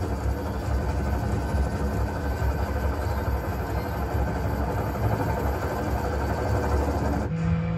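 Film-soundtrack helicopter and heavy vehicle engine noise: a loud, dense low rumble that cuts off abruptly near the end, giving way to a low held music note.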